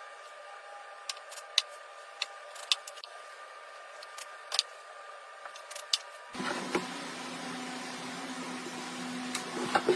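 Scattered sharp clicks and light taps from small objects being handled, over a faint hiss, then a steady low hum starting about six seconds in.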